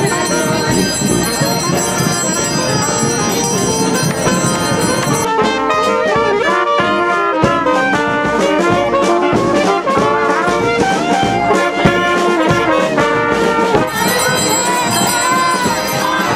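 Music with brass instruments, trombone and trumpet, playing a tune; the sound changes abruptly about five seconds in, becoming sharper and more rhythmic, and changes back near the end.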